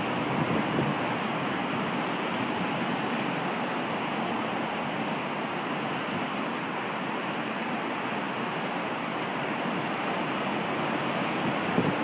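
Steady, even rush of heavy surf breaking along the shore, big waves raised by an approaching typhoon.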